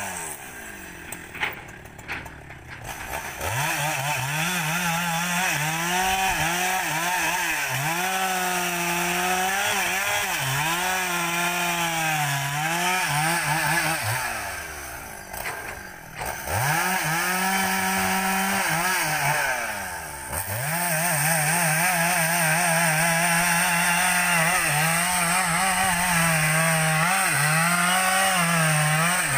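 Husqvarna 395 XP two-stroke chainsaw bucking felled rubber-tree logs. It runs at full throttle, its pitch sagging and recovering as the chain bites into the wood. It drops back to idle near the start, about halfway and again briefly about two-thirds through, revving back up each time.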